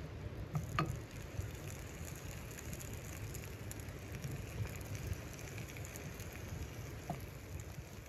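Steady rain-like patter with a low rumble underneath, and two sharp clicks, about a second in and near the end.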